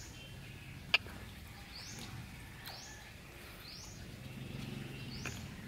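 A bird repeating a short rising chirp about once a second. A single sharp click about a second in is the loudest sound.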